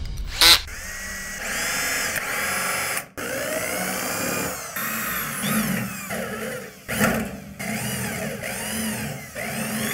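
Cordless drills boring out spot welds in a sheet-steel truck cowl panel: the drill runs with a high whine that wavers in pitch as the bit cuts into the metal, in several short passes broken off about 3 seconds in and again about 7 seconds in.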